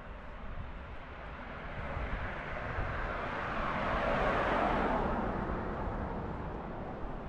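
A passing vehicle: a steady rushing noise that swells to a peak about four and a half seconds in, then fades away.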